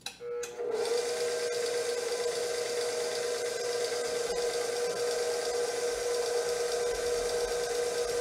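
KitchenAid stand mixer switched on with a couple of clicks, then its motor runs steadily with a constant whine, turning a pasta sheet roller attachment as dough is fed through.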